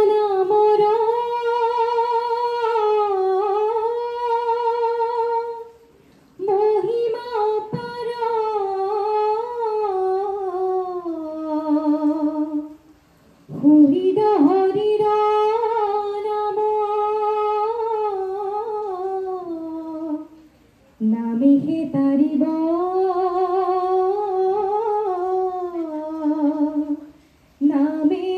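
A woman's solo voice singing dihanam, Assamese devotional verse, unaccompanied. She sings four long drawn-out phrases with wavering ornaments, most falling in pitch at the end, with short pauses for breath between them.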